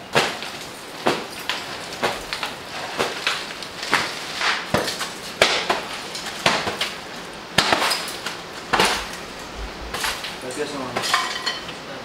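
Camping gear and utensils being unpacked and handled: irregular knocks, clinks and clatter, several a second at times.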